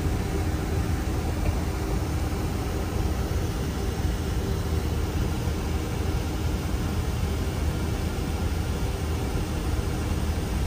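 Steady low rumble and airy hiss of an airliner's cockpit in flight on the landing approach, with engine and airflow noise holding even throughout.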